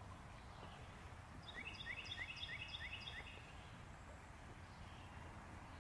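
A bird calling a quick run of about seven short, bright, identical notes, about four a second, starting about a second and a half in. Under it is a steady low background rumble.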